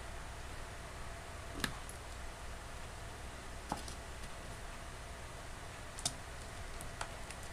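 Cellophane-wrapped cardboard box being handled and slit open with a utility knife: four sharp clicks spread across a few seconds, over a steady low hum and hiss.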